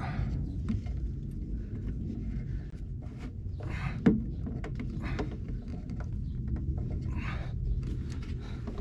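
Close handling noises of a clear reinforced hose and plastic fittings being pushed and clamped onto a grey water tank: scattered light clicks and rubbing, with one sharp click about four seconds in, over a steady low rumble.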